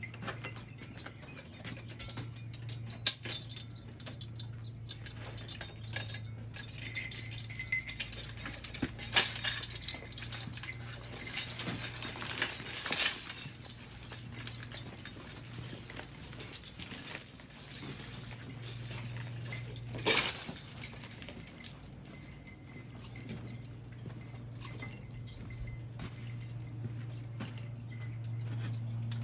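Metal harness hardware on working mules jingling and clinking in irregular bursts, busiest through the middle, over a steady low hum.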